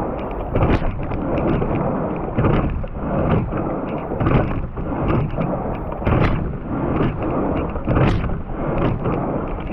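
Racing quad scull under way: water rushing past the hull and wind on the microphone, swelling and easing with each stroke at about 33 strokes a minute. Sharp knocks come with some of the strokes, from the oar working in its oarlock at the catch.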